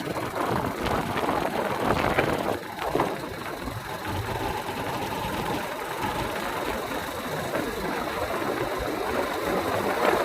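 Motorcycle engine running steadily, with a couple of short knocks about two and three seconds in.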